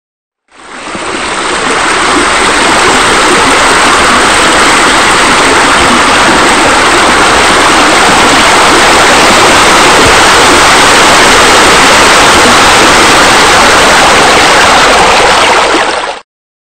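Steady rush of running, splashing water, the water sound laid over the rendered pool's bubbler fountain. It fades in over about a second and cuts off abruptly near the end.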